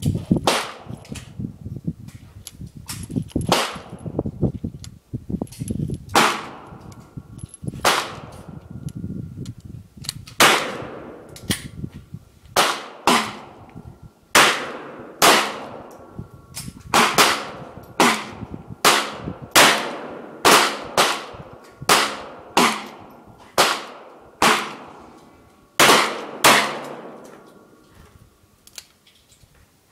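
Handgun shots in an irregular run of about one a second, each crack followed by a short ringing tail. Several shooters are firing in their own time, including a Taurus .357 Magnum revolver.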